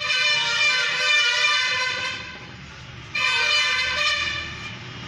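A vehicle horn sounding twice: a long, steady honk of about two seconds, then a shorter one about three seconds in.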